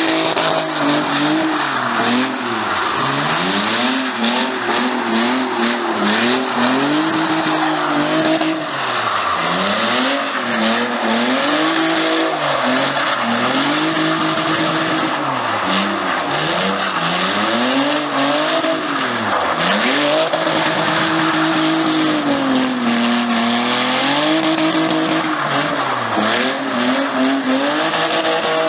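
Car engine revving up and falling back over and over, roughly every couple of seconds, over a steady hiss of tyre squeal, as a car drifts or does a burnout.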